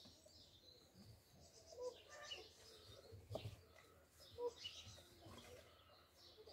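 Faint birdsong: small birds chirping in short, repeated high calls, with a few soft clicks.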